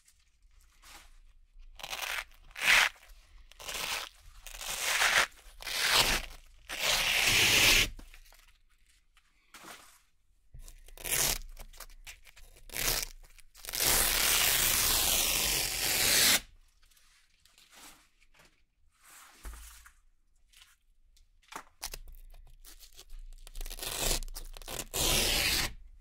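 Red Velcro (hook-and-loop) strips being peeled apart: a series of separate ripping peels, most under a second, with short pauses between, and one long continuous peel of about two and a half seconds in the middle.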